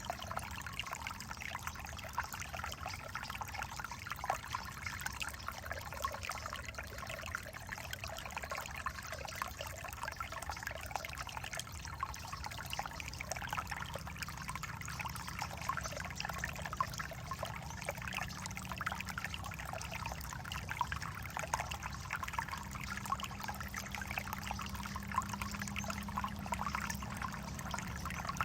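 Alpine Creek trickling and running steadily: a small stream's continuous babble of water.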